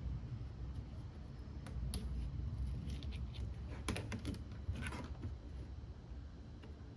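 Small clicks and taps of repair tools against an iPhone X as it is taken apart, in a few clusters over a steady low rumble.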